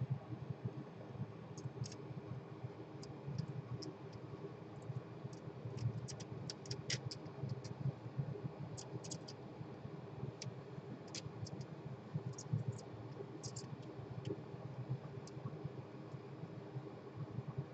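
Faint, irregular crackling ticks of flux spitting and boiling under a soldering iron tip as it works the pins of a PS4 HDMI port, over a low steady hum.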